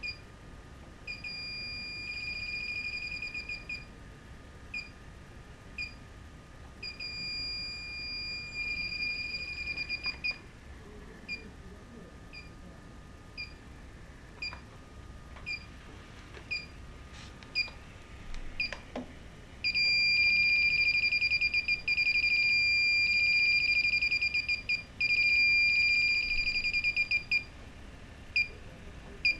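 Refrigerant leak detector (Inficon D-TEK Select) beeping: slow single beeps about once a second, breaking three times into runs of rapid beeping a few seconds long, the longest and loudest near the end. The faster beeping is the detector signalling that it is picking up refrigerant.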